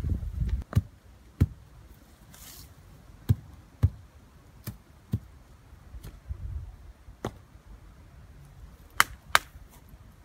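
Boots scuffing and kicking dry soil, then a series of irregular sharp knocks and clicks as stones are handled and set down at the base of a tree, two of the loudest close together near the end.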